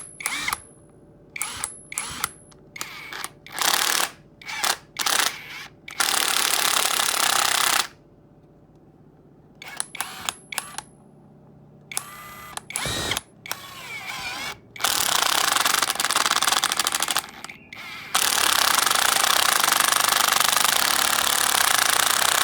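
DeWalt cordless drill run in a series of short trigger bursts, with a couple of longer runs. It then runs steadily for the last few seconds.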